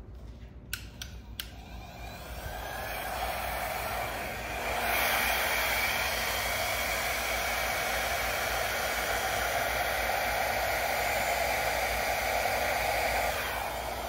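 Small handheld hair dryer blowing: a few clicks, then its airflow builds into a steady rush that steps up louder about five seconds in and holds.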